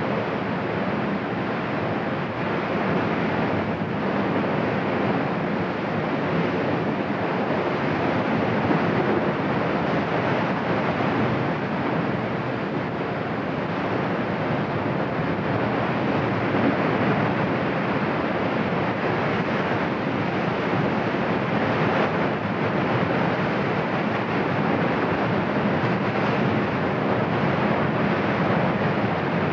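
Cumbre Vieja volcano erupting, its vent sending up a dark ash column with a continuous, even roar that does not rise or fall.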